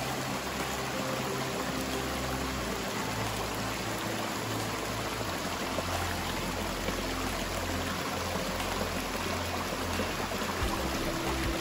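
Chalakudy River water rushing steadily over a low concrete weir and rocks.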